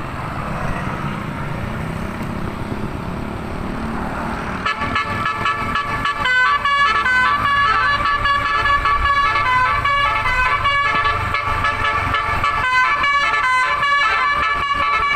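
Low rumble of a bus engine and road noise, then about five seconds in a telolet basuri bus horn begins playing a fast multi-note melody, its notes changing several times a second until the end.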